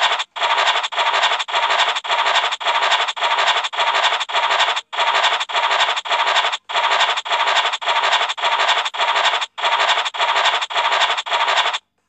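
Online scratch-card game's scratching sound effect, repeating about twice a second as each box is scratched off, in short noisy bursts with brief gaps between them. It stops near the end once the card is fully revealed.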